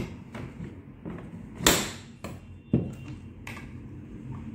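A screwdriver clicking, scraping and knocking against the plastic housing of a Tefal steam iron while working at a screw at its rear: a handful of separate sharp clicks, the loudest a short scrape a little under two seconds in and a sharp knock about a second later.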